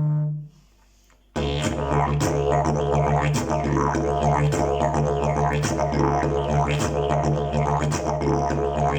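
Fiberglass-and-leaf slide didgeridoo: a held drone dies away about half a second in, and after a pause of about a second the low drone starts again with fast rhythmic overtone pulses played over it.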